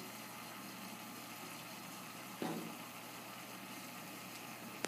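Faint, steady hum and hiss of a saltwater reef aquarium's pumps and water circulation. A brief, soft sound comes about two and a half seconds in.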